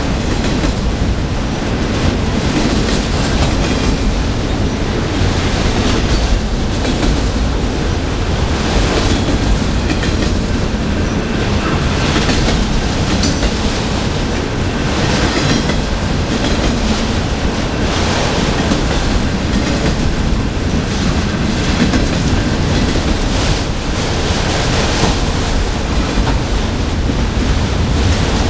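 Freight train of autorack cars rolling past: a loud, steady rumble of steel wheels on rail, with irregular clacks as the wheels cross rail joints.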